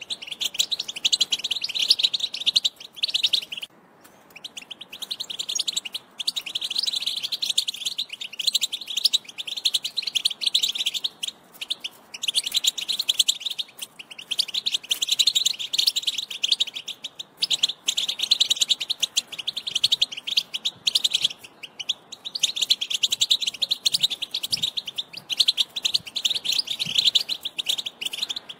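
European goldfinch singing: long phrases of fast, high twittering and trills, broken by short pauses.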